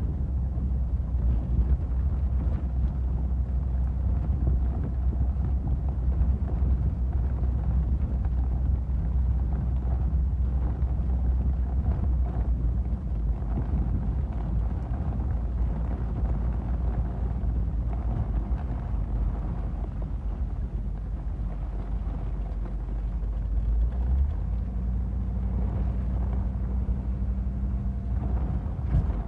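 HMMWV M998's diesel V8 and drivetrain running steadily under way, heard from inside the open, spartan cab. The engine note shifts near the end.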